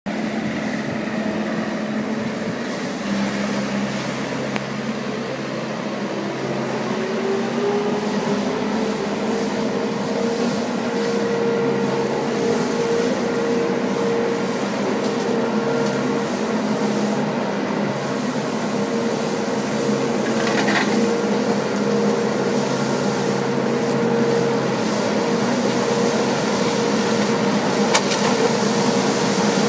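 Green Machine 636 compact street sweeper running as it drives and sweeps leaves: a steady mechanical drone with a whine that rises in pitch about a quarter of the way in and then holds steady.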